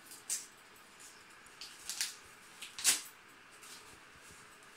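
Paper and packaging rustling and crinkling in short, irregular bursts as items are handled out of a shipping box, with one louder crinkle about three seconds in.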